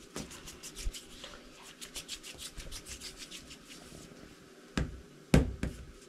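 Hands rolling and twisting chapati dough on a floured counter: soft rubbing with many quick small clicks, then two thumps near the end, the second the louder, as the dough is coiled and set down.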